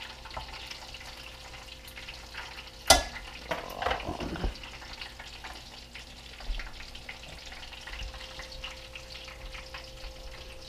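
Breaded brook trout frying in oil, a steady crackling sizzle. About three seconds in there is one sharp click, followed by a brief clatter.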